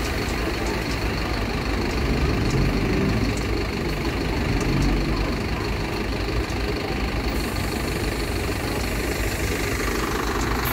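Diesel city bus engines running in street traffic, a steady low rumble that swells briefly a couple of times a few seconds in.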